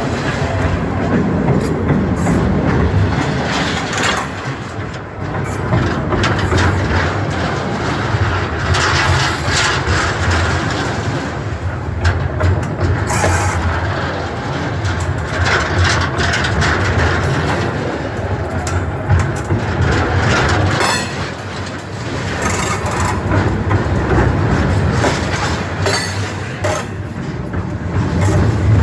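Train cars rolling directly over a microphone lying between the rails: a loud, continuous rumble and rattle, broken by repeated clacks and knocks as the wheels pass over the rail.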